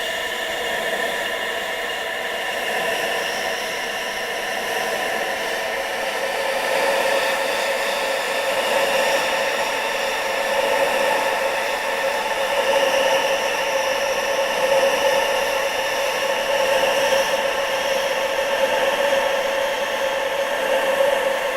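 Steady wind rushing, with several whistling tones held inside the hiss, a little louder from about seven seconds in.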